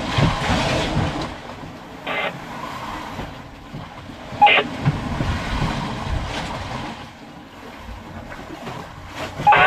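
Low, uneven rumble of a fishing boat underway, with two brief bursts from the on-board two-way radio, about two and four and a half seconds in.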